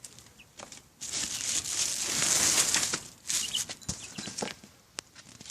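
Baby birds scrabbling and flapping in their bedding: a noisy rustle lasting about two seconds, then scattered light taps and a dull knock.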